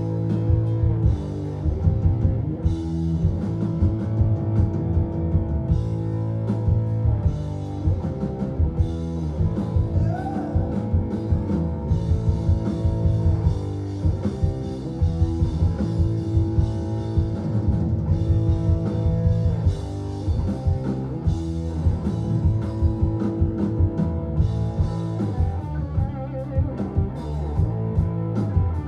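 Live rock band playing loud, with electric guitar, bass guitar and a drum kit keeping a steady beat.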